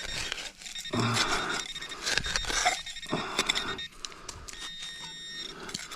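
Metal detector beeping with a steady high tone that comes and goes while a target is pinpointed and dug out, over scratching and scraping noise.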